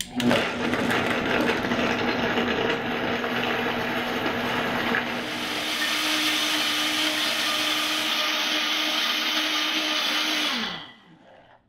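Vitamix high-speed blender running, pureeing frozen pineapple chunks with young coconut flesh. The motor starts at once, its pitch steps up about halfway through, then it winds down and stops near the end.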